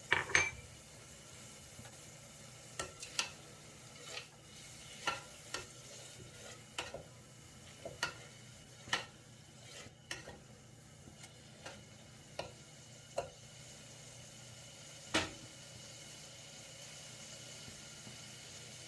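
A spatula stirring and knocking against a cooking pan, sharp clicks roughly once a second with the loudest near the start and about fifteen seconds in, over a faint steady sizzle of whole spices frying.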